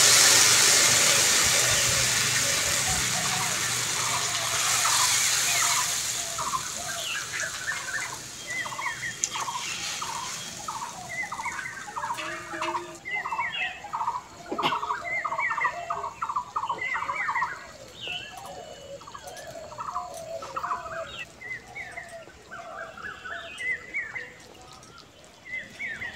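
Water poured into a pan of hot oil, spices and fried potatoes for a curry broth, hissing and sizzling and dying away over the first six seconds or so. Then poultry calling in quick repeated notes, several a second, to the end.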